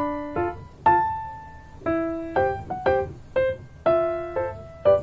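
Background keyboard music in a piano sound: single notes and chords struck about every half second, each left to ring and fade.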